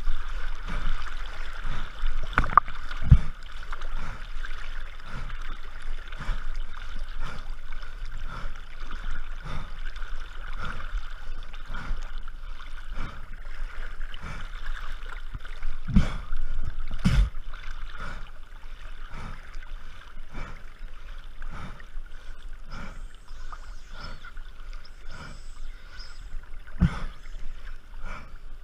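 Water sloshing and splashing around a waterproof action camera at the river surface, in a steady rhythm about once a second. A few louder knocks and splashes come a couple of seconds in and again about halfway through.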